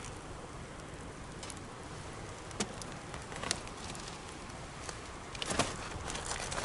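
Wood bonfire burning with a steady crackle and hiss, broken by sharp pops from the burning wood, a few spaced out at first and then a quick cluster near the end.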